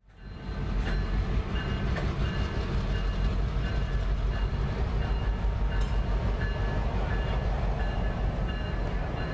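Diesel locomotives moving a cut of cars through a rail yard: a steady low rumble of engines and rolling cars, with short repeated high tones and a few sharp clanks.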